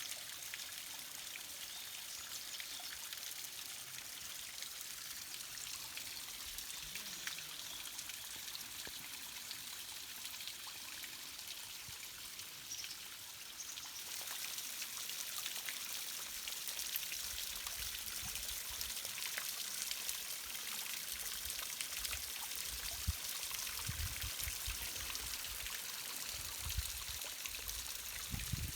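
Mountain stream water rushing and splashing over rocks, a steady hiss that grows a little louder about halfway through, with low rumbles in the second half.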